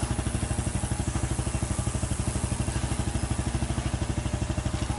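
Sport go-kart engine idling steadily, an even, rapid putter with no change in speed.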